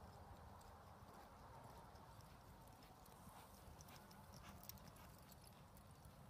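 Faint hoofbeats of a reining horse loping on soft arena sand, irregular muffled thuds over a low steady rumble.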